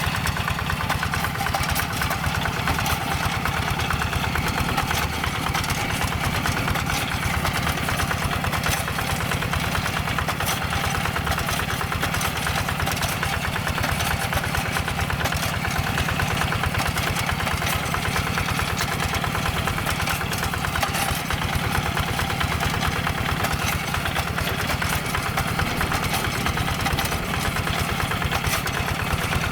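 Single-cylinder diesel engine of a two-wheel hand tractor running steadily and evenly while plowing a rice paddy.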